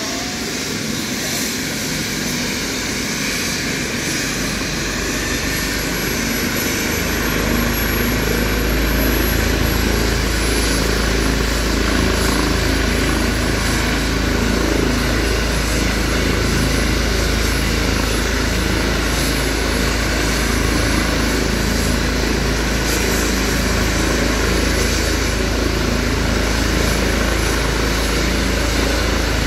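ADAC rescue helicopter running up on the ground during start-up: a steady turbine whine and rotor noise. About seven seconds in it gets louder, with a strong low rumble joining in, then holds steady.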